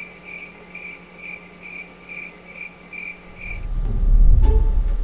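Cricket chirping, high and even, about two chirps a second, stopping after about three and a half seconds. A loud deep rumble then swells and fades near the end.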